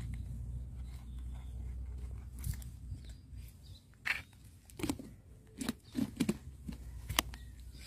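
A run of about six sharp clicks and knocks in the second half as an orange plastic food bowl is handled, over a low rumble of handling noise in the first half.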